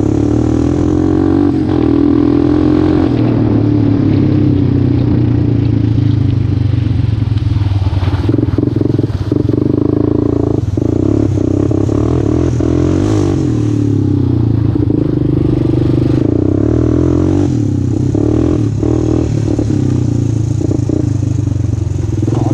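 Honda Recon 250 utility ATV engine running under changing throttle, its pitch rising and falling as it is ridden over a rough trail. Scattered short knocks and clatters from the machine jolting over the bumps.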